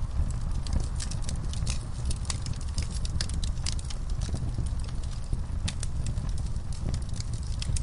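Wood fire in a fireplace crackling: many sharp, irregular pops and snaps over a steady low sound of the burning.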